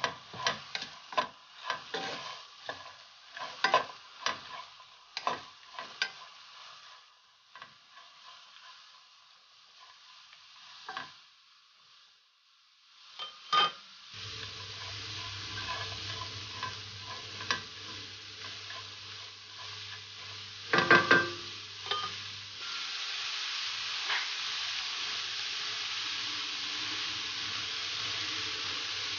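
Wooden spatula scraping and tapping against a non-stick frying pan as chopped leek, onion, chili and garlic are stirred in hot oil, in quick separate clicks for the first several seconds. About halfway in, a steady sizzle of the vegetables frying takes over and grows louder, with a few knocks near the end.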